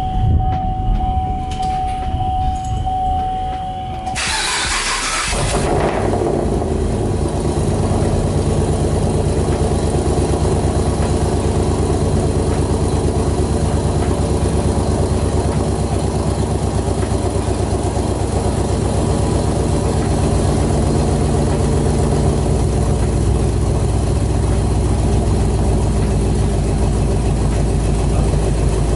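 Camaro SS 6.2-litre V8 breathing through newly fitted long-tube headers: it fires about four seconds in with a loud flare, then settles into a steady, deep idle. A steady high tone sounds for the first few seconds before it catches.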